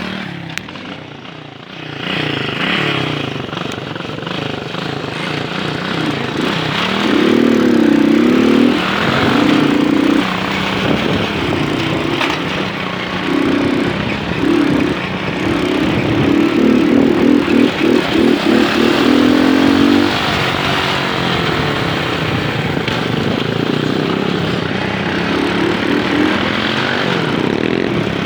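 Moped's small engine running under way, its pitch rising and falling repeatedly as it speeds up and slows.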